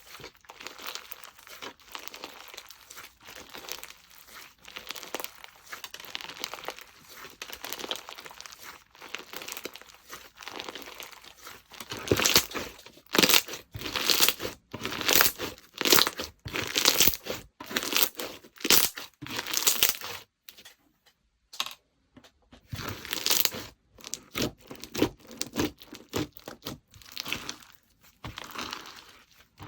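Slime being squished and stretched by hand, giving irregular sticky crackling noises that grow louder and sharper about twelve seconds in, with a brief pause a little later.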